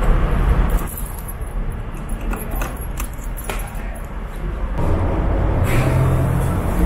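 Low engine rumble inside a ferry's enclosed vehicle deck, with a few sharp clicks about one to three seconds in. From about five seconds in, a louder, steadier low hum takes over.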